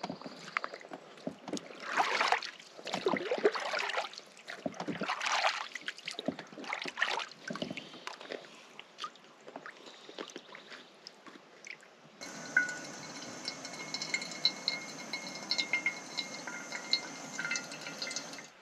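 Lake water lapping and splashing in irregular washes. About twelve seconds in it cuts off abruptly, giving way to a steady hiss with short, high chirping tones.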